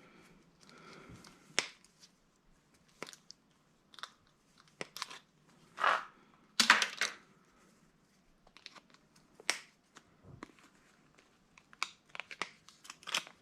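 Irregular clicks, knocks and rustling of small objects being handled, loudest in a crinkling rustle about six to seven seconds in.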